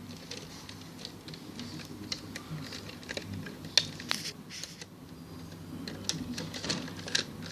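Irregular light plastic clicks and rattles from a Lego model being handled, with two sharper clicks about halfway through and another near the end.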